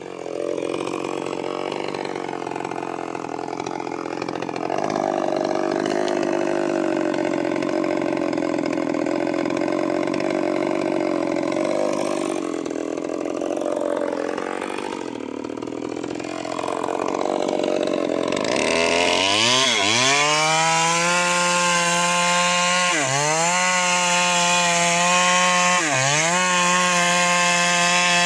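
Eagles 6620 two-stroke chainsaw cutting teak, its engine note wavering under load. About eighteen seconds in it revs up sharply to a high, steady whine that dips briefly about every three seconds.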